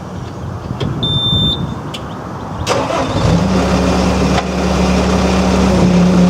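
Bobcat S185 skid steer's diesel engine being started with the key. A short high beep sounds about a second in, the engine cranks and catches about three seconds in, then settles into a steady idle.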